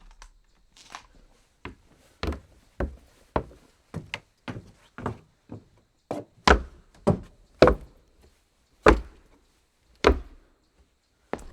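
Footsteps walking on a wooden floor: a series of sharp wooden knocks, about two steps a second at an uneven pace with a few short pauses.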